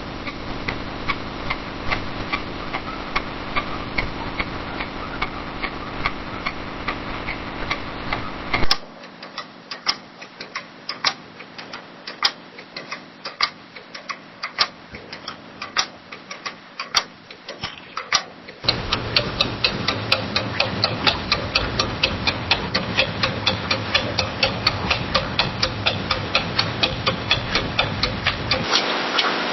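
Clock ticking steadily over a hum of room noise, in several separate recordings joined with abrupt cuts about every ten seconds. The room noise drops sharply at the first cut, which comes with a louder knock, and rises again at the second. The ticks come faster in the last recording.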